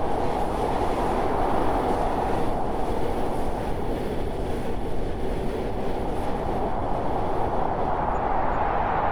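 A train running steadily: an even, low running noise of the cars on the track, with no distinct clickety-clack beat.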